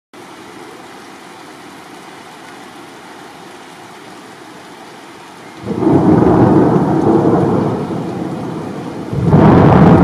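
Steady rain hiss, then about halfway in a sudden loud thunderclap that rumbles on and eases off a little, followed by a second loud peal of thunder near the end.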